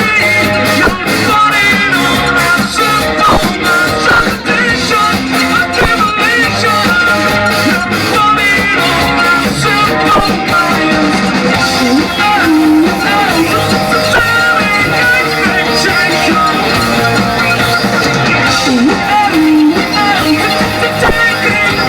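Live rock band playing a song, with electric guitar over a steady beat.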